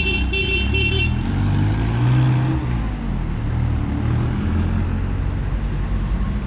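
Road traffic: a vehicle horn sounds briefly at the start over a steady low rumble of motor vehicles, which swells about two seconds in.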